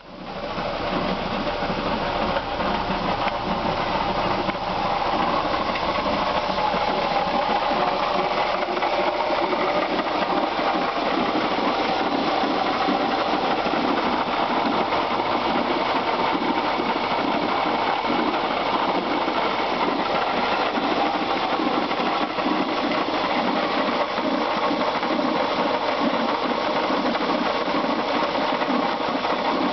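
1996 Subaru Legacy Outback's 2.5-litre flat-four engine running steadily with a fast, even knocking, which the owner puts down to a bad water pump.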